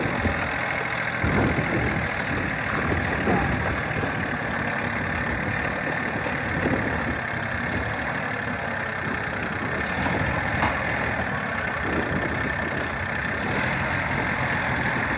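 IHI backhoe's diesel engine running steadily, with a few faint knocks.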